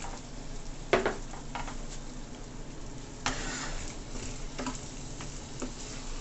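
Wooden spoon stirring curried saltfish and vegetables in a stainless steel sauté pan over a steady sizzle. A few short scrapes and knocks of the spoon against the pan break through; the loudest comes about a second in, and a longer scrape follows a little past three seconds.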